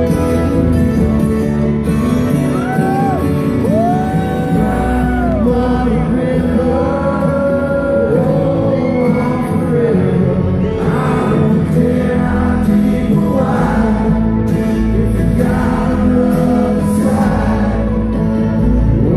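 Live bluegrass band playing: acoustic guitar, mandolin, banjo and upright bass, with a voice singing over them.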